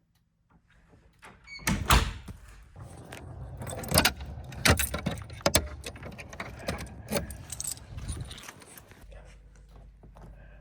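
Rattling, clicking and knocking handling noise, beginning about one and a half seconds in with several sharp loud strikes and dying down near the end, after which a low hum remains.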